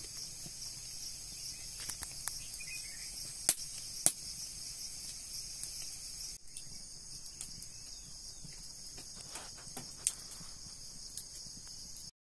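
Open wood fire burning dry corn husks around roasting corn cobs, crackling softly with three sharp pops. A steady high-pitched insect chorus runs underneath.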